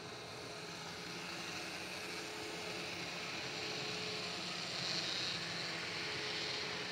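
N-scale model freight train running past: the small electric motors of the model diesel locomotives and the wheels rolling on the rails make a steady whir that grows louder about four seconds in as the locomotives come close.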